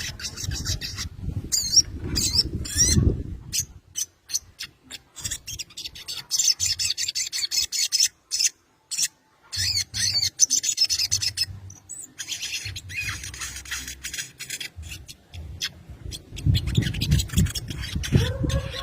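Sogon, a small sunbird, giving fast runs of sharp, high chirps and squeaky calls, a female calling frantically to draw a rival or mate into answering.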